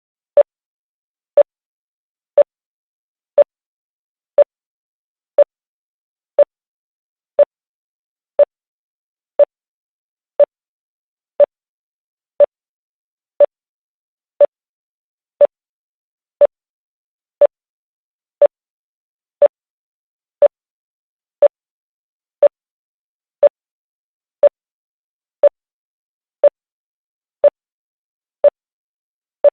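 Star Trek electronic beep sound effect: a short, mid-pitched beep repeating evenly about once a second.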